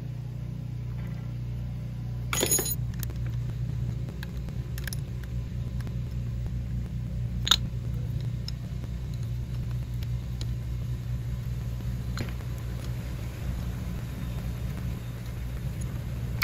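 A few sharp metal clicks and clinks of an open-end wrench working the bleeder valve and crossover brake-pipe fittings on a DeLorean DMC-12 rear brake caliper, the loudest about two seconds in, over a steady low hum.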